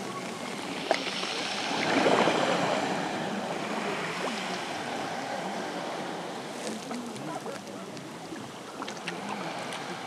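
Small sea waves lapping and washing over stones in shallow water at the shore. One wash swells up about two seconds in and slowly fades, with a few small clicks.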